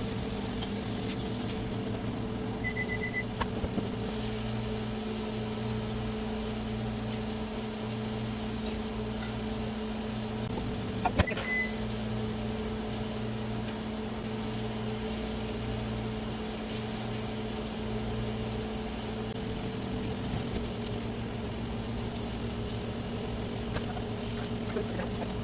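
Microwave oven running with a steady hum. A quick run of short high beeps comes about three seconds in, and a click and a single beep come around eleven seconds.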